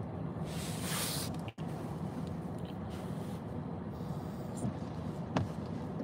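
Steady low rumble of a vehicle idling, heard from inside the car's cabin. About half a second in there is a brief loud hiss, and the sound cuts out for an instant shortly after.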